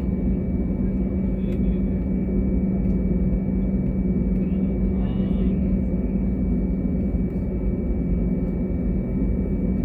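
Airbus A320neo engines and airflow heard inside the cabin as a steady drone with a strong low hum and a thin high whine.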